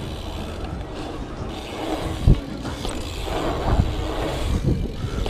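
BMX bike rolling across a concrete skatepark: a steady low rumble of the tyres on concrete with the bike rattling, and a few thuds as it rolls through the ramps, the loudest about two seconds in.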